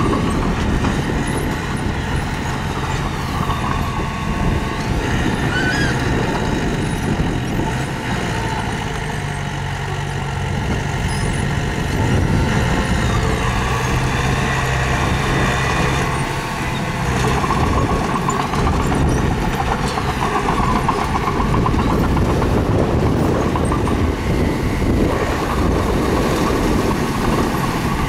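Diesel engine of a mini bulldozer running steadily under load, its pitch and loudness rising and falling as it works, with some faint metallic squeaks.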